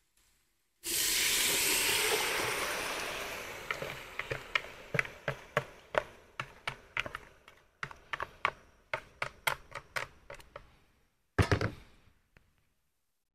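Marinated goat offal hitting hot oil in an aluminium pot: a sudden loud sizzle about a second in that fades over a few seconds into scattered crackling and popping, then a single knock near the end.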